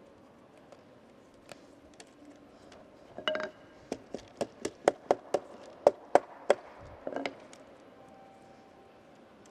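About a dozen sharp wooden knocks, roughly three a second, on a wooden board held flat over a hinoki kumiko lattice, tapping the small interlocking pieces down into place; they begin about three seconds in and stop about seven seconds in. Before them, faint light clicks of the wooden pieces being handled.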